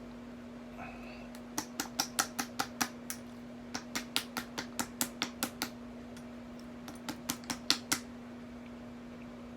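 Three runs of rapid, sharp clicks, about five a second, over a steady low hum.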